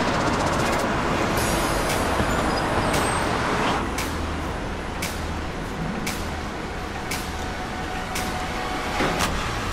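City street ambience: steady rumble of road traffic and passing vehicles, with a sharp click about once a second.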